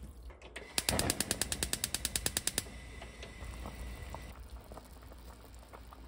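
Gas stove's electric igniter clicking rapidly, about ten clicks a second for roughly two seconds, as the burner under the pot is lit.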